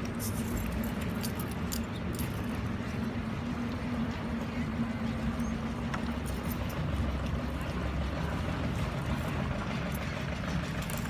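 A motor engine running steadily at a constant pitch, with light clicks in the first couple of seconds.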